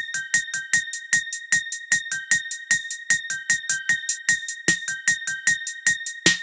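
Electronic music with a quick, even ticking beat, soft low thumps and a held high tone with short notes just below it.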